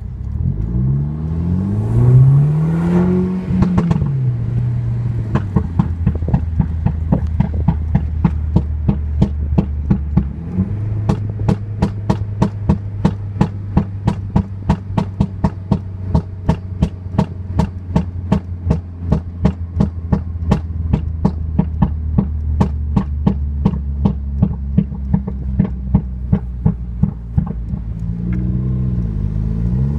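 Tuned Mercedes-Benz C200 1.5T (M264 turbocharged four-cylinder) on a Stage 1++ map with pops and bangs: revved up and let fall once, then held at steady revs while the exhaust crackles in a long, fast, even string of pops, and revved again near the end.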